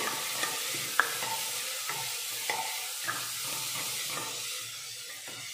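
Chopped onions sizzling in hot oil in a pressure cooker, stirred with a ladle that scrapes and clicks against the pot a few times.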